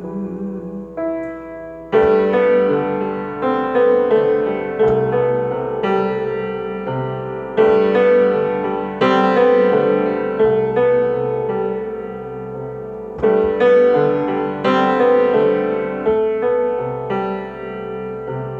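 Piano playing an instrumental interlude: slow chords struck one after another, each decaying before the next, with no singing.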